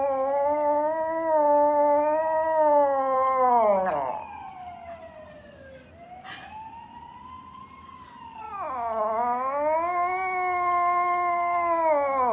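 Small poodle howling in long, wavering howls: one dies away about four seconds in, and another starts a couple of seconds before the end, with a fainter rising-and-falling tone between them.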